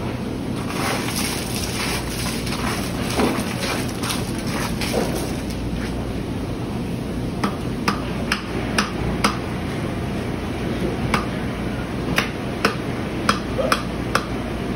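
Yellow mallet striking the back of a knife blade to drive it through a bluefin tuna's collar behind the head: a series of sharp knocks, soft and scattered at first, then louder at about two a second from about halfway through.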